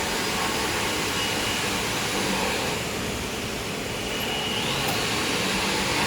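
Auto-feeding tissue log bandsaw slitting machine running: a steady mechanical noise, with a faint high tone coming and going.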